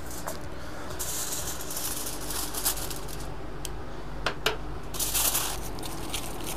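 Aluminium foil crinkling and rustling in bursts as ribs are wrapped in it by hand, with two sharp clicks a little past the middle.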